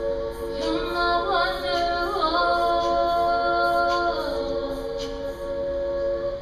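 All-female a cappella group holding a sustained closing chord while a solo female voice sings a melody over it, rising and then settling back into the chord. The chord cuts off together at the very end: the song's final bars.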